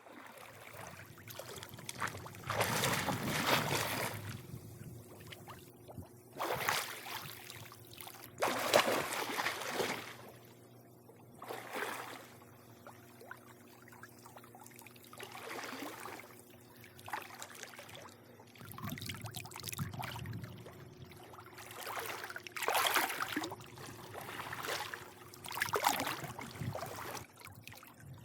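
Swimming-pool water lapping and splashing in irregular surges a few seconds apart, over a faint steady low hum.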